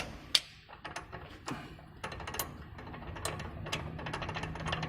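Replaced turbocharger from a BMW X6 rattling as it is moved by hand: light metallic clicks, scattered at first, then a fast steady run from about halfway. This is the rattle the car came in with, which is really noisy.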